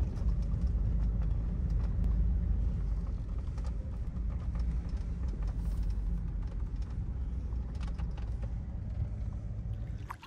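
Chevy Silverado pickup driving, its low engine and road rumble heard from inside the cab, with faint scattered rattles. The rumble grows quieter over the last few seconds.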